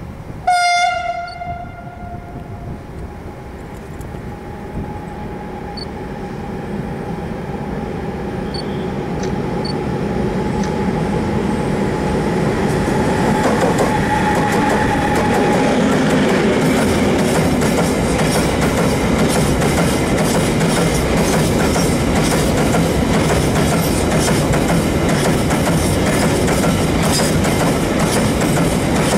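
Freight train headed by an E6ACTa Dragon electric locomotive sounds one horn blast of about two seconds, just after the start. The train then approaches, growing louder over the first dozen seconds, and runs past: open coal wagons rolling by with a steady noise and repeated clicks of wheels over rail joints.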